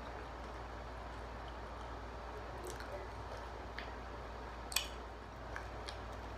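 Someone eating finger food: faint chewing and handling sounds over a steady low hum, with a few short sharp clicks. The loudest click comes a little before five seconds in.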